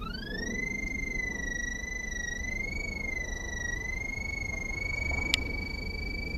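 Ridgid NaviTrack II line locator's electronic signal tone, a whistle-like tone that rises in pitch at the start and then holds high with a slight waver. A high, steady tone is the locator picking up a strong signal from the sonde in the sewer camera's cable. One sharp click about five seconds in.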